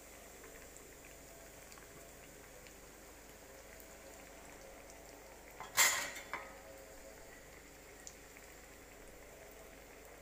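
Breadcrumb-coated egg kababs deep-frying in hot oil in a pan: a steady, faint bubbling sizzle with scattered small crackles. About six seconds in there is a short, louder burst of crackle.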